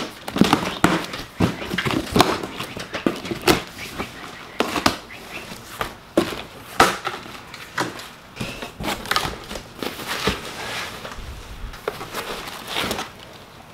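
A cardboard shipping box being unpacked by hand: packing tape slit with a small blade, cardboard flaps pulled open, and wrapping rustled as the contents are lifted out. It comes as a run of irregular scrapes, rips and knocks.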